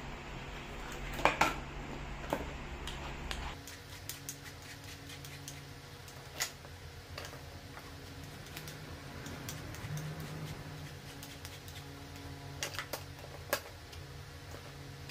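Scattered clicks and knocks of an inflatable boat's paddle parts, plastic blades and shaft sections, being handled and fitted together, the loudest a quick pair about a second in. A steady low hum runs underneath, with a low rumble that drops away about 3.5 s in.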